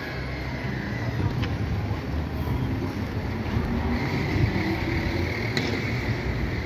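City street ambience: a steady low rumble of traffic, with a couple of faint clicks.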